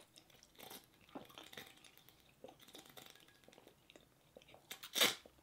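Faint eating and drinking sounds: soft chewing, swallowing and small mouth clicks, with one short, sharper noisy sound about five seconds in.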